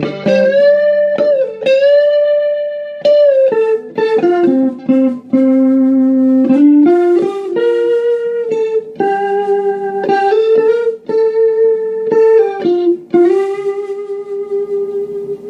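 Stratocaster electric guitar played through a Yamaha RA-200 rotary speaker amp: a slow single-note lead line of long held notes, several bent down and back up in pitch.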